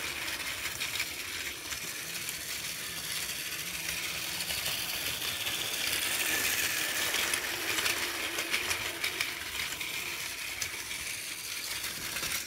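Battery-powered Plarail toy shinkansen trains running on blue plastic track: a steady whir of the small motors and plastic gearboxes, with a stream of light clicks from the wheels passing over the track joints.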